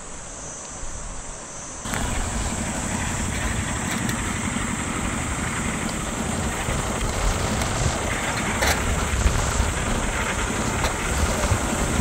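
Engine of a small open four-wheeled utility vehicle running as it drives up, coming in suddenly about two seconds in.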